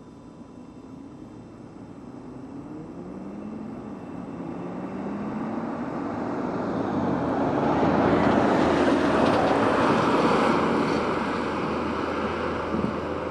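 Lamborghini Gallardo's V10 exhaust growing steadily louder as the car approaches under acceleration, the engine note rising in pitch, dropping once at a gear change, then rising again. It is loudest about eight to ten seconds in as the car goes by, then fades slightly.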